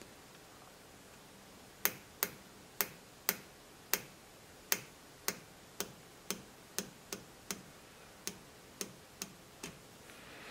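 A small pointed tool clicking over the threads of a wood lathe's headstock spindle, one sharp click per thread as the threads per inch are counted: about sixteen clicks, roughly two a second, growing fainter toward the end.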